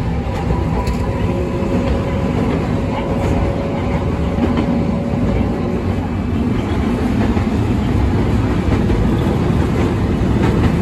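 Kumamoto City Tram 8500-series car running, heard from inside the cabin: the rumble of its nose-suspended (吊り掛け) traction motor drive, with a steady whine that fades out about halfway through. Now and then the wheels clack over rail joints.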